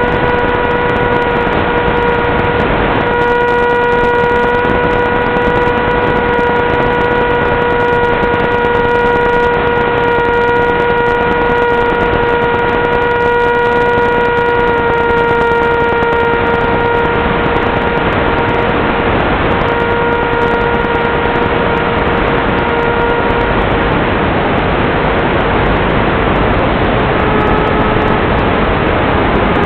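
Steady whine of an FPV wing's electric motor and propeller over a loud rush of wind and hiss, heard from on board. The whine shifts slightly in pitch about halfway through and sinks under the hiss near the end.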